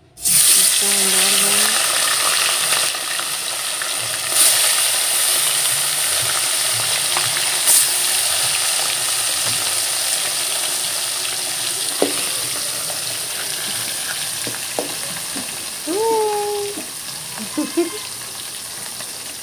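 Small fish dropped into hot oil in a steel kadhai and deep-frying: a loud sizzle that starts suddenly and slowly dies down, with a few sharp knocks along the way.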